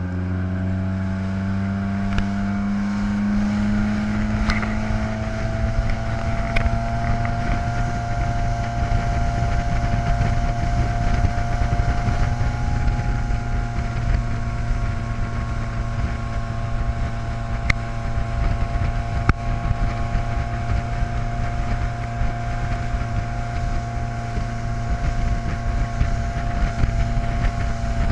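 Motorboat engine throttling up to pull a water skier up out of the water. Its pitch rises over the first five or six seconds, then it runs steady at speed, with wind rushing on the microphone.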